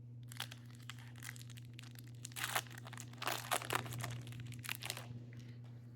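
Foil wrapper of a trading-card pack being torn open and crinkled by hand, in irregular crackles, over a steady low hum.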